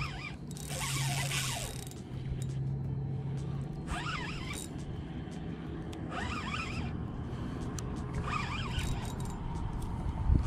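Daiwa spinning reel being cranked to retrieve a lure, the handle and gears turning with a mechanical whir, over a steady low hum. A brief rush of noise comes about a second in.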